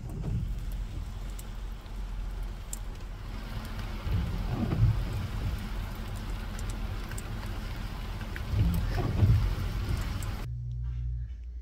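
Steady rain falling on and around a car, heard from inside the car with the engine's low idling hum beneath it, with two louder swells about four and nine seconds in. The sound stops abruptly near the end.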